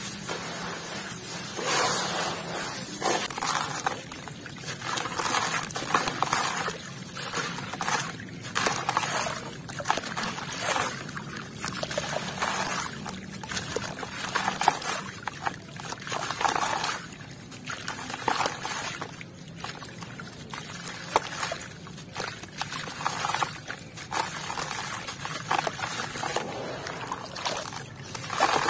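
Hands squeezing and crumbling lumps of wet, gritty sand-cement mix, with grit and water trickling and splashing down into a basin of water in repeated gushes about every second or two.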